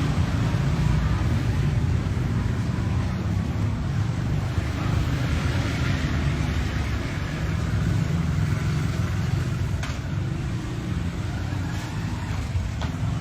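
Steady low rumble of a car driving, engine and road noise, with two faint clicks in the last few seconds.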